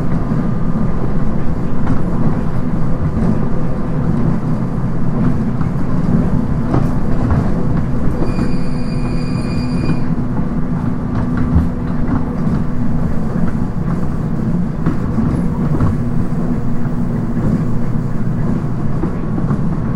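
Running noise inside a JR East 719 series electric multiple unit, the car known for its unusual noise: a steady low rumble of wheels and running gear with a faint level whine, at steady speed. About eight seconds in, a high tone sounds for about two seconds.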